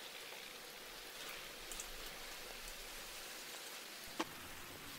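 Liquid dripping from a toy pistol just lifted out of a rust-removal bath, under a steady low hiss. A single sharp click about four seconds in as the pistol is set down on the table.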